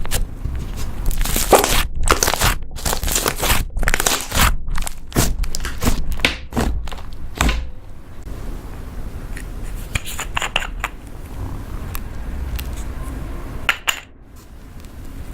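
Butter slime being pressed, stretched and squished by hand, giving quick crackly, squelchy handling noises. They come thick and fast through the first half and more sparsely later on.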